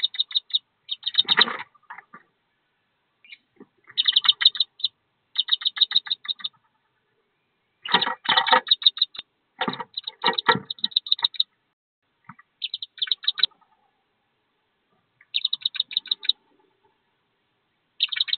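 Wood duck ducklings peeping in quick, high-pitched bouts about every second or two. Some of the louder bouts carry a rougher, lower sound mixed in.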